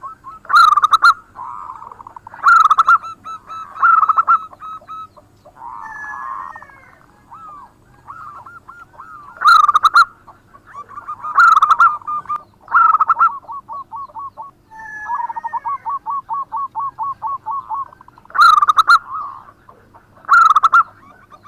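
Zebra dove (perkutut) singing its cooing song: loud phrases repeated every couple of seconds, with a rapid run of short repeated coo notes partway through.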